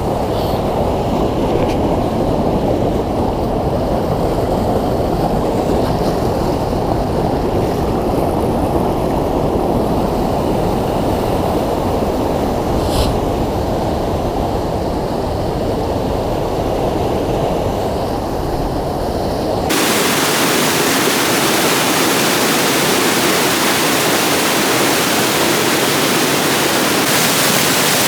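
Waterfall's steady rush of falling water. About twenty seconds in, the sound changes abruptly to a brighter, hissier rush with less low rumble.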